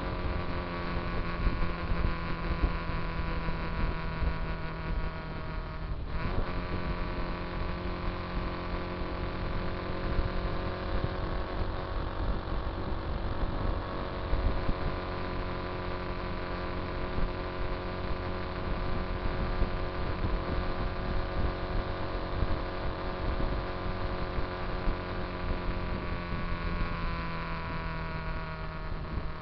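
Motorcycle engine running at a steady highway cruise, a constant pitched drone over heavy wind rumble on the microphone. About six seconds in the drone briefly breaks and resumes, and near the end its pitch falls slightly as the bike slows.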